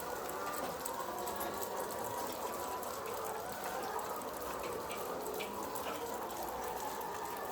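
Dense, steady chorus of a large flock of chickens, many calls overlapping, with scattered small clicks.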